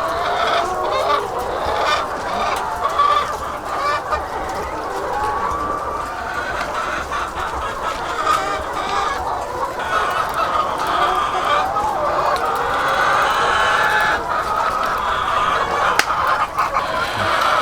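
A large flock of laying hens in cages clucking and squawking all at once, making a dense, continuous din of overlapping calls. There is a single sharp click near the end.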